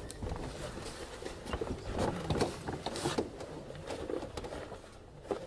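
Interior sound of a historic Berlin U-Bahn type AI railcar (car 262, built 1924/25): a low rumble with irregular mechanical clacks and knocks, several sharper ones about two to three seconds in.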